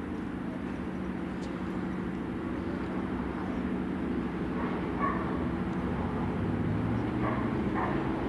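CNR CKD Dalian diesel locomotive engine running with a steady low hum, growing slowly louder.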